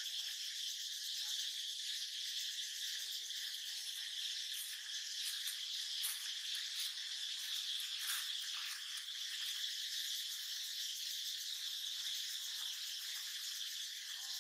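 Steady chorus of forest insects, a continuous high-pitched buzz that holds level throughout.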